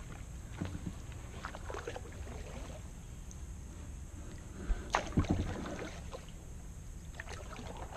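Kayak paddling: paddle strokes dipping and splashing with small clicks and knocks, and a quick cluster of louder knocks about five seconds in.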